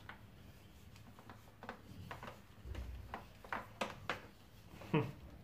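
Faint, irregular clicks and rustles of a Philips Marathon Ultimate vacuum cleaner's power cord being handled and wound by hand onto its cord reel, with a brief low rumble about midway.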